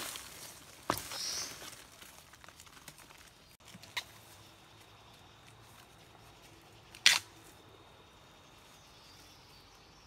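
Dry bamboo leaves and twigs rustling and crackling as they are handled, then a few sharp snaps of dry stems, the loudest about seven seconds in.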